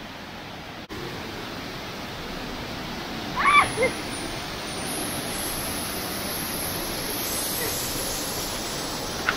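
Water pouring over a low dam spillway and splashing into the river below: a steady rush that grows a little louder as the falling water gets closer. About three and a half seconds in, a brief high-pitched cry rises and falls over it.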